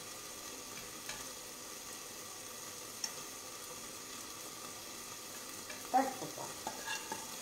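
Steady sizzle of food frying in a pan on a gas stove, with light clicks and scrapes of a utensil pushing zucchini noodles out of a pan onto a plate, loudest about six seconds in.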